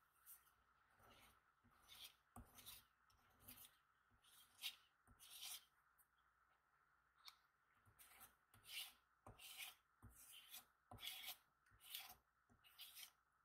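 A spatula scraping ointment into a 2-ounce ointment jar, pressing it down and around the sides to work out air pockets: a string of short, soft scrapes at an uneven pace.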